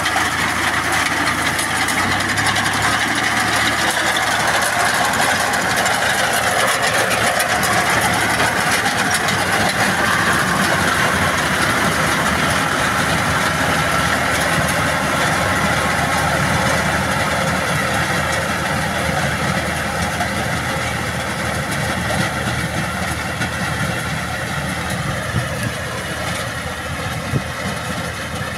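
Tractor engine running steadily while its mounted grass-cutting machine chops through tall fodder grass, a dense continuous mechanical noise. It grows somewhat fainter near the end as the tractor moves off.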